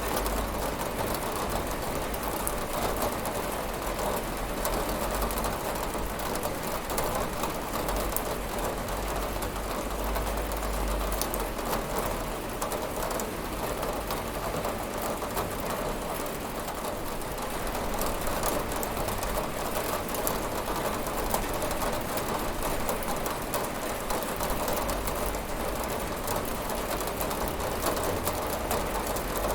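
Steady rain falling and pattering on a window, a dense even hiss with fine drop ticks and a low rumble underneath.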